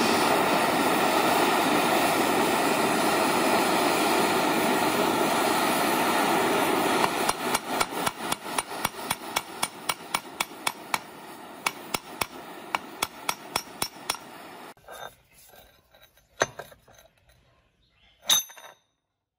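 Handheld gas torch hissing steadily as it heats a seized bolt in a rusty steel flange. About seven seconds in, the hiss drops and a hammer starts tapping the metal about three or four times a second. Near the end the torch cuts off, and two sharp metal clanks follow.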